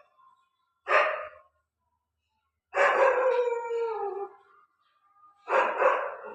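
Dog barking: a short bark about a second in, then a longer drawn-out call that falls in pitch, and another bark near the end.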